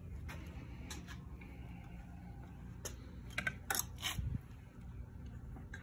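Several scattered light clicks and taps, with a cluster of them a little past the middle and one soft low thud, over a steady low hum.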